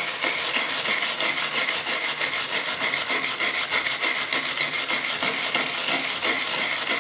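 Hand tool worked rapidly back and forth over plywood, a continuous rasping rub of several strokes a second, as the damaged formwork surface is prepared for repair.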